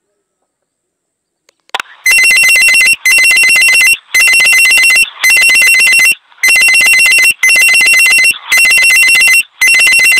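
Electronic ringtone going off loudly: a rapidly pulsing two-tone ring repeated in bursts of about a second with short gaps, starting about two seconds in.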